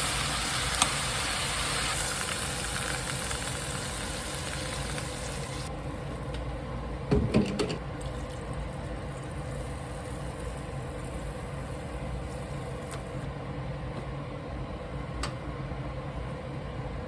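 Kitchen cooking sounds: a steady hiss from the stove that cuts off about six seconds in, then a brief clatter of utensils or cookware about a second later, over a low steady hum.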